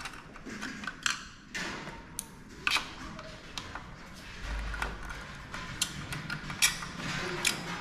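Scattered light clicks and taps of hand tools and small parts being handled during motorcycle assembly, coming at irregular intervals with a few sharper ones.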